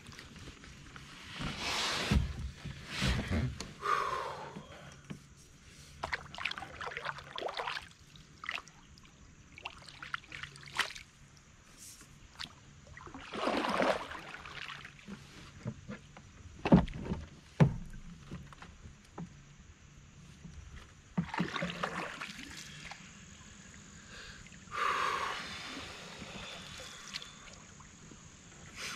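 Canoe paddle strokes: the blade dipping and pulling through the water with a swishing splash every three to four seconds. A few sharp knocks come between the strokes.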